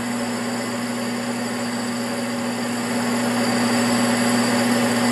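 Metal lathe running steadily, spinning a sealed front wheel hub assembly while it is loaded by hand to check its bearing for roughness; a steady hum that grows slightly louder from about three seconds in.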